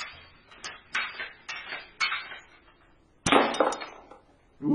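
Homemade pump-charged BB air gun with a soda-bottle air tank firing a quick string of shots: a series of sharp cracks a fraction of a second apart, the loudest a little over three seconds in.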